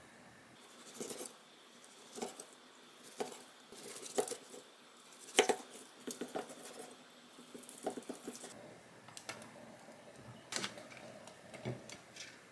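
Knife slicing through roasted pork belly on a wooden cutting board, with a sharp knock or crunch about once a second as each cut meets the board. Near the end, tongs click as pieces are set onto a plate.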